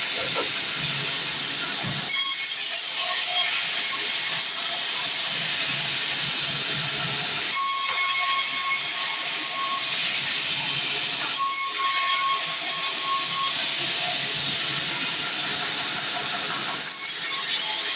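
Sawmill saw cutting through wood: a steady hissing rasp, with a faint thin whine coming in twice partway through.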